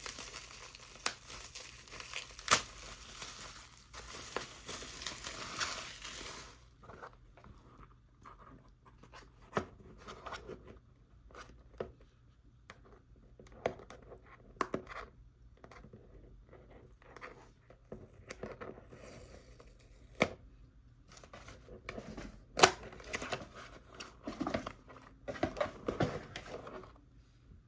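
Packaging being unwrapped by hand: crinkling and tearing of wrapping for about the first six seconds, then scattered rustles, clicks and taps as the contents are handled.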